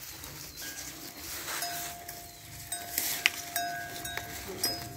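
A few light metallic clinks at irregular intervals, each with a brief ring, over a faint steady high tone that comes in about one and a half seconds in.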